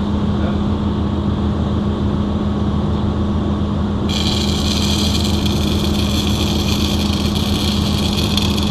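A steady low machine hum, then a welding arc struck on the pipeline joint about four seconds in, giving a continuous crackling hiss over the hum.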